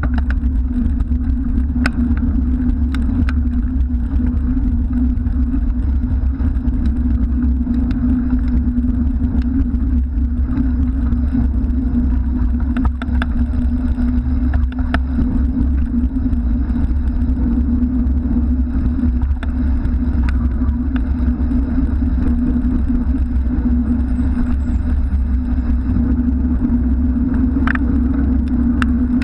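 Steady low wind and road rumble on a bicycle-mounted action camera while riding in traffic, with the engines of passing cars and a cement mixer truck close alongside in the first half. A few short clicks break through now and then.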